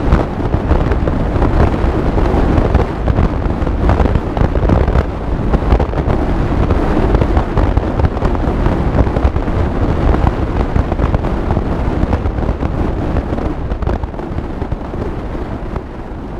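Wind buffeting the microphone over the rumble of the open-top Ferrari 488 Spider cruising at speed, a rough, crackling roar that fades away near the end.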